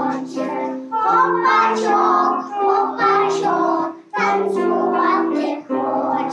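A group of young children singing a song together, with electronic keyboard accompaniment.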